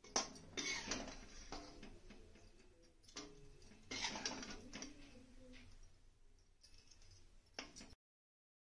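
Faint, scattered taps and clinks of a spoon against a serving bowl.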